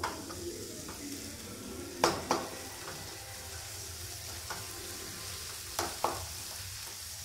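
A wooden spatula stirs a thick masala frying in oil in a nonstick pan, over a steady sizzle. The spatula knocks sharply against the pan in quick pairs, about two seconds in and again about six seconds in.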